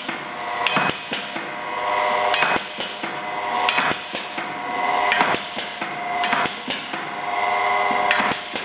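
Chocolate-bar pusher packing machine running: a steady whine from its geared electric motor under irregular clacks and knocks from the pusher mechanism as bars are shoved into a box.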